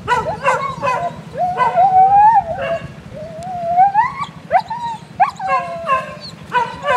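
A dog whining and yelping: long drawn-out whines, one rising about three to four seconds in, broken by short high yips. A low steady drone runs underneath.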